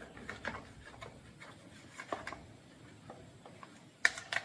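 Light scattered clicks, taps and rubbing as a small Stihl chainsaw is handled and wiped clean, with a louder cluster of sharp clicks and knocks about four seconds in.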